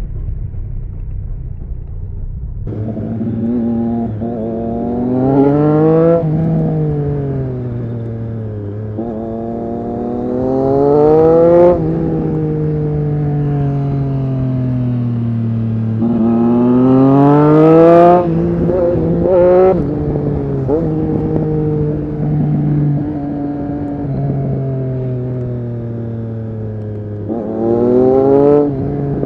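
Triumph Street Triple RS 765's inline three-cylinder engine through an SC-Project S1 exhaust, revving hard under acceleration four times, the pitch climbing steeply each time and dropping away as the throttle closes or the gear changes.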